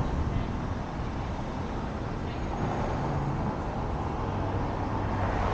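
City street traffic heard from the roof of a slowly moving car: the steady rumble of car engines and tyres, with other cars passing close by.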